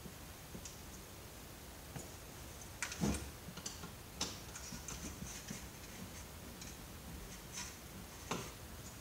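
Scattered light clicks and taps of tools and parts being handled while an old computer monitor is taken apart, with a heavier knock about three seconds in.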